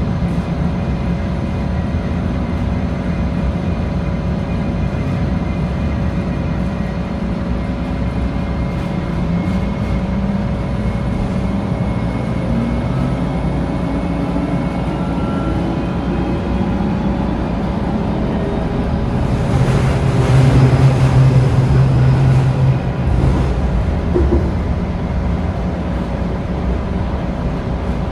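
Onboard running noise of a Bombardier Flexity light rail vehicle pulling away and gathering speed: a steady hum with a motor whine that slowly rises in pitch as it accelerates. About two-thirds of the way through, the wheels on the rails get louder and rumble for a few seconds.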